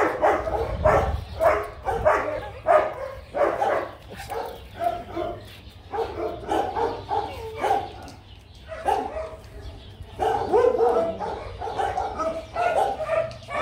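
Medium-sized black dog barking over and over in short calls, less than a second apart, with a brief lull partway through.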